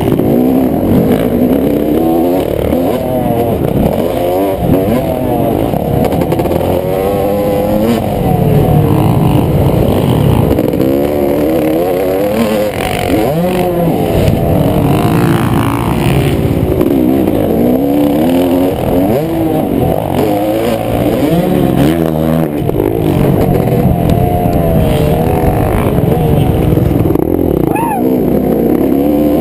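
Yamaha YZ250 two-stroke motocross engine heard up close from on board, revving hard and dropping back over and over as the bike is ridden around the track, its pitch climbing and falling with the throttle and gear changes.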